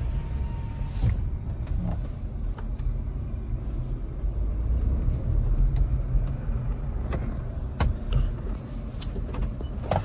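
Kia car driving: a steady low rumble of engine and road, with a few light clicks.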